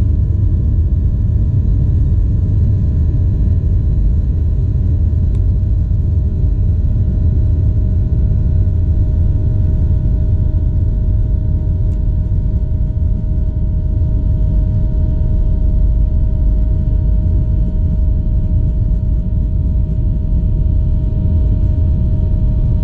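Boeing 737-800 cabin noise while taxiing: a steady low rumble from the airframe and its CFM56-7B engines at taxi power, with a faint steady hum above it.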